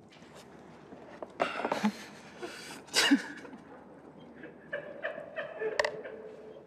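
A man splutters a mouthful of milk out in sharp, sneeze-like bursts, about a second and a half in and again at three seconds, then breaks into laughter.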